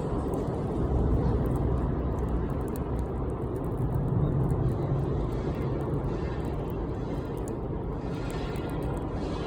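Bonfire burning: a steady low rushing noise with scattered faint crackles.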